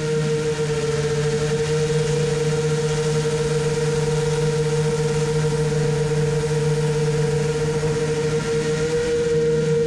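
A motor running at a steady speed, a low hum with a higher whine over it that holds one pitch.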